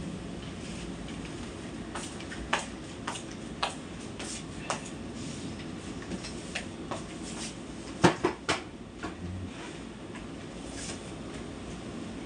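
Scattered light clicks and knocks from someone moving about a tiled room and handling a broom and dustpan, with three sharper knocks close together about eight seconds in, over a steady low room hum.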